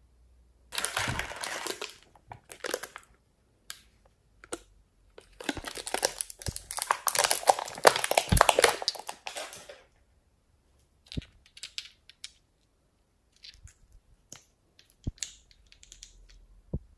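Thin plastic of a toy makeup tray crinkling and crackling as small glitter pots are pressed and pulled out of it: a short burst about a second in, then a longer one of several seconds. After it come a few light clicks of the small plastic pots being handled.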